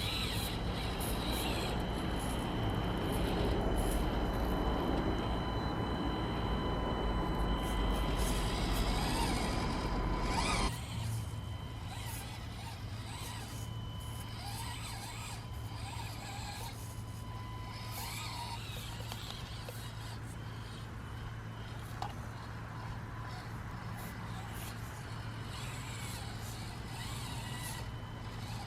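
Axial SCX24 1/24-scale RC crawler driving, its small electric motor and gears giving a steady thin whine over a hiss. The sound is louder at first, then drops suddenly about ten seconds in and carries on quieter.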